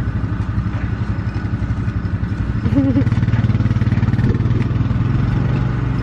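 An engine running steadily close by: a loud, low pulsing drone that grows a little louder just before halfway, with a short voice rising over it briefly at about that point.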